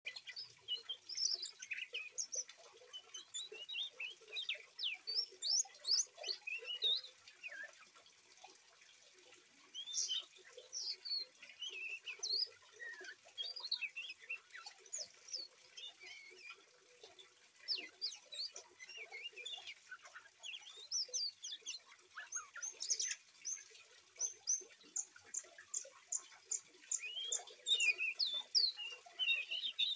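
Young Oriental magpie-robin, about three months old, singing a fast, irregular jumble of short chirps and whistles, with a quick run of about eight evenly spaced notes near the end. Faint running water underneath.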